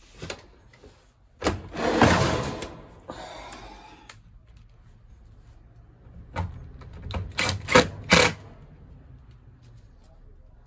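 Working noises from screwing a tumble dryer back together: a click, a loud scraping rattle of about a second, then five sharp knocks in quick succession from tools and metal parts being handled.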